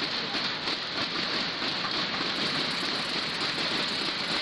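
Crowd in an indoor tennis arena: a steady, dense din of clapping and voices.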